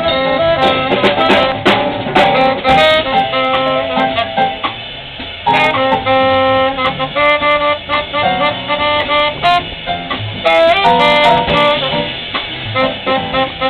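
Live jazz quintet playing: tenor saxophone carrying the melody over piano, double bass, electric guitars and a drum kit with cymbal hits. The band drops back briefly about five seconds in, then comes in loud again.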